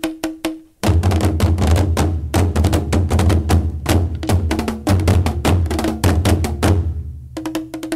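Music with a quick wood-block rhythm; about a second in, bass and drums come in, then drop out near the end, leaving the wood block alone.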